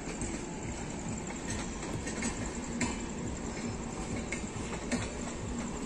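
Passenger train coaches running through a station without stopping: a steady rumble with scattered sharp clicks from the wheels on the rails.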